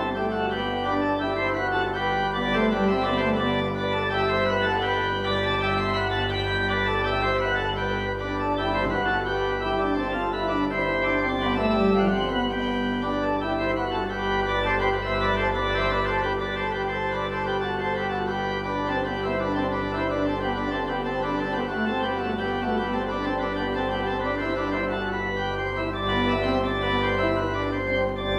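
Pipe organ playing music with held low notes under moving chords.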